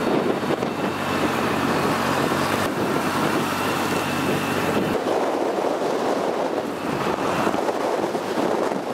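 Wind rushing over the microphone with engine and road noise from a moving vehicle that the camera rides in; a low engine hum drops out about halfway through.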